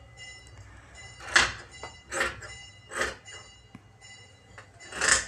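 Large tailor's scissors cutting through cloth: three short snips about a second apart, then one more near the end.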